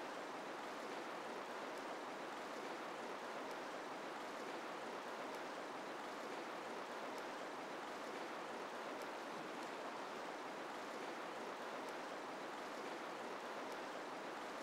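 River water running, a steady even rush that does not change.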